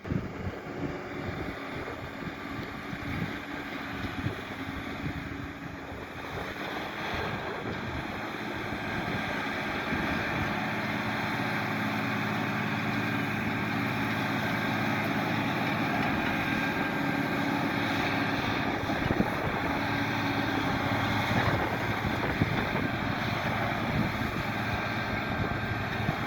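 Massey Ferguson 7718S tractor engine running steadily under load while ploughing, growing louder over the first half as it comes closer, then holding steady.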